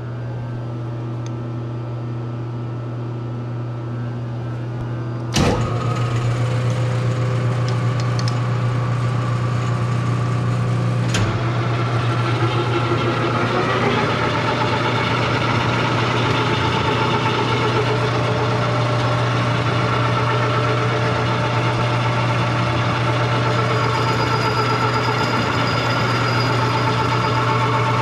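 Metal lathe running with a steady hum while it turns a steel tube. About five seconds in there is a sharp clunk and it runs louder after it, with another knock a few seconds later.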